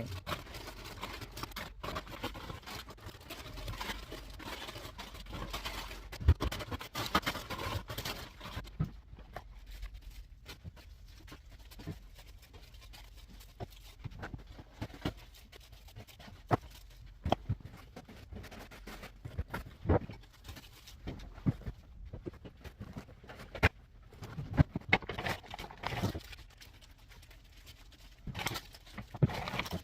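Restocking a vending machine by hand: scattered clicks, knocks and rustling as items are handled and put in place, with a few louder knocks now and then.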